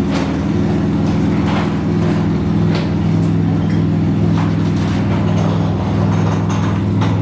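Car on the move: a loud, steady low drone of engine and road noise, with a few faint clicks scattered through it.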